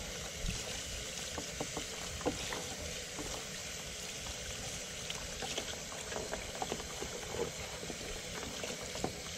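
Running water splashing steadily over a cleaned blue crab and into a plastic sink as the innards are rinsed out, with a few faint clicks of the shell being handled.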